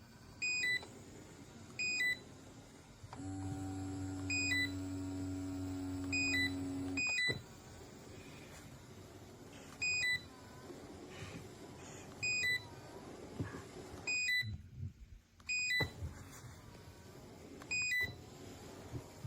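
Electric foot massager's control panel giving short electronic beeps, about ten of them spaced a second or more apart, as its buttons are pressed. Its motor hums steadily for about four seconds in the middle and then stops.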